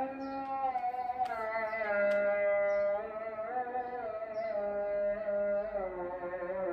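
The Islamic call to prayer (ezan), chanted by a man. He holds long, ornamented notes that slide and waver between pitches.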